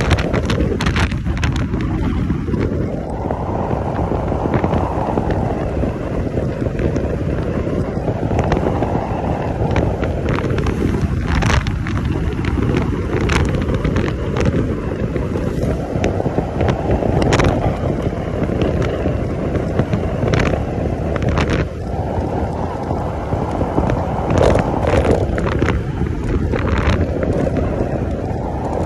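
Wind buffeting the microphone of a Yamaha scooter rider travelling at about 30–40 km/h, a loud continuous rumble that swells and eases every few seconds, with scattered crackles and the scooter's road noise underneath.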